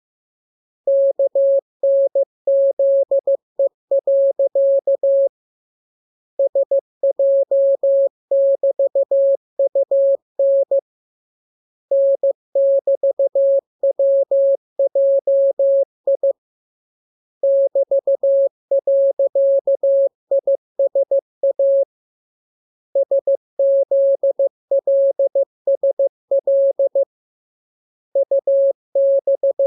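Morse code (CW) sent as a steady single-pitch beep, keyed into fast dots and dashes. The code comes in runs of about four seconds with a pause of about a second between them: a practice radiogram of letter groups for learning to copy by ear.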